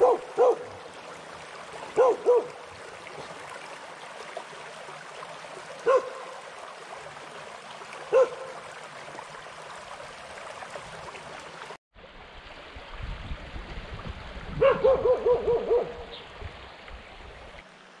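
Dog barking: single barks and pairs a few seconds apart, then a quick run of about six barks near the end, over the steady rush of a shallow stream.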